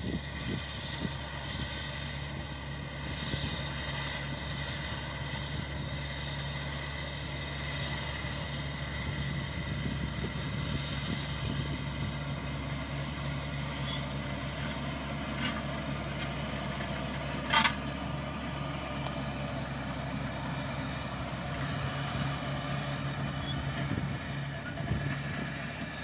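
Old crawler bulldozer's diesel engine running steadily as it drives along towing a disc harrow, with one sharp click about two-thirds of the way through.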